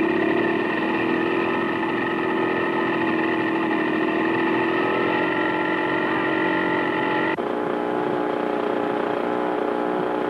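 Portable engine-driven generator running steadily, with a high whine over a lower engine drone; the pitch rises slightly midway and the sound shifts abruptly about seven seconds in.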